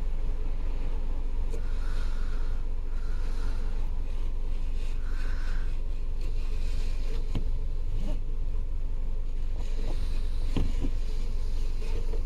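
Steady low rumble of a running vehicle, with a few faint clicks and taps scattered through it.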